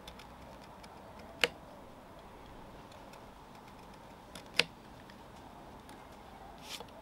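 A carving knife cutting between the tines of a nectarine-wood fork: faint ticking cuts with two sharp clicks about three seconds apart, and a softer scrape near the end.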